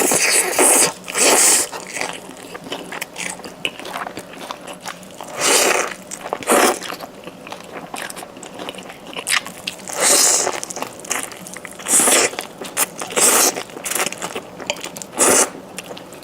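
Close-miked eating: bites and chewing with crunching and wet mouth sounds, coming in a string of short bursts, with a few louder ones every couple of seconds.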